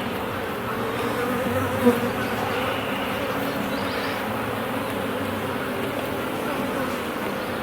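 Honeybees buzzing in an open hive: a steady, even hum from many bees on the frames, with a brief tap about two seconds in.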